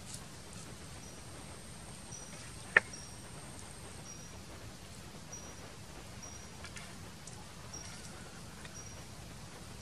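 Outdoor ambience: short, high chirps repeating about once a second over a soft steady background, with a thin high whine in the first few seconds. A single sharp click a little under three seconds in is the loudest sound.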